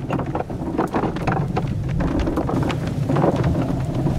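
A car driving, heard from inside, with a steady low rumble and a rapid, irregular clattering rattle. One viewer takes it for the car being broken, the other for a monster following it, whose noise sounds like rubber or plastic wheels.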